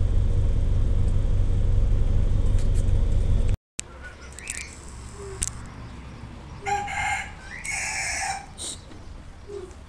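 A steady low rumble that cuts off abruptly a little over three seconds in. After a short quiet stretch, a rooster crows once: a short note, then a longer held one.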